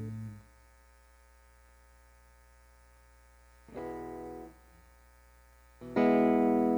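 Electric guitar played through a Line 6 POD HD300 amp model, recorded direct. A chord dies away, a short chord is played about four seconds in and cut off, and a loud chord is struck near the end and left ringing. Faint hum sits in the gaps.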